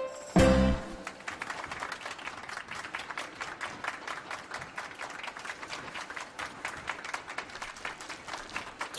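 A loud, sudden thump, then steady applause: many hands clapping.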